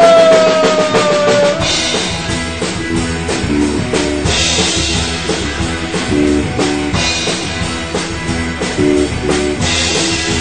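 Live rock band playing an instrumental passage: a long held note slides down in pitch and ends about a second and a half in. Then the drum kit keeps a steady beat with a cymbal crash every few seconds under a repeating electric guitar and bass riff.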